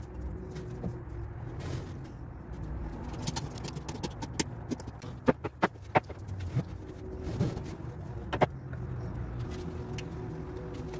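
Ratchet straps being fitted and tightened around a wooden cabinet: scattered sharp metal clicks from the ratchet buckles, three in quick succession a little past halfway, over a steady low background rumble.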